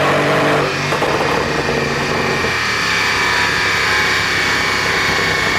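Mercedes-AMG 5.5-litre twin-turbo V8 of a CLS 63 AMG S, tuned for exhaust pops. It is held at raised revs, then released under a second in, crackling and popping as the revs fall, and it settles to a steady idle about halfway through.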